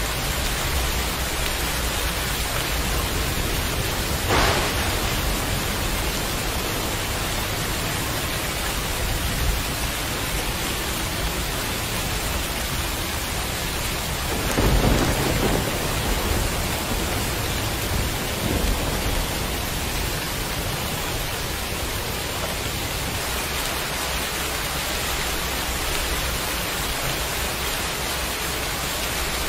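Steady heavy rain falling. Thunder breaks in twice: a short sharp crack about four seconds in and a louder low rumble around fifteen seconds in.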